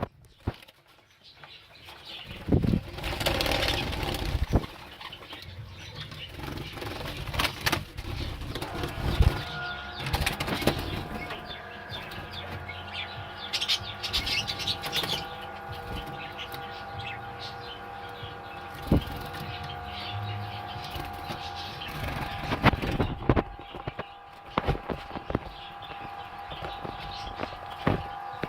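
Pet canaries fluttering and hopping, wings flapping and small knocks, with short bursts of chirping. From about a third of the way in, a steady tone runs underneath.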